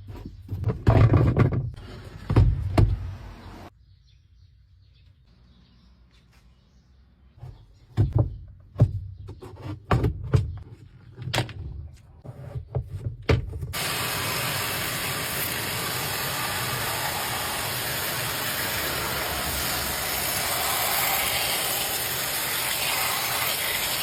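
LG washing machine drum spinning an unbalanced load of one wet towel, banging hard and irregularly against the cabinet in heavy thumps. About two-thirds of the way through the banging gives way to a steady, loud rushing noise of the drum at high spin speed.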